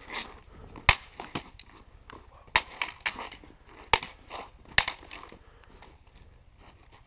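Crutches striking one another in a mock fight: irregular sharp clacks, several in quick bunches, with the loudest about a second in and about four seconds in. The hits thin out over the last couple of seconds.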